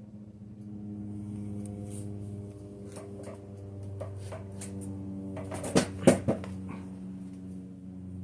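A steady low hum with a handful of sharp clicks and knocks, the loudest two about six seconds in.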